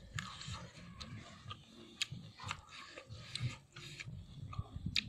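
A person chewing a mouthful of rice and snail meat close to the microphone, with irregular wet mouth clicks.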